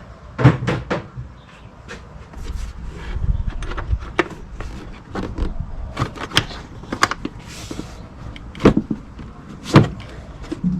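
Irregular clicks and knocks of the plastic air intake and air filter housing being unclipped and handled in the engine bay, with the sharpest knocks about half a second in and again near the end.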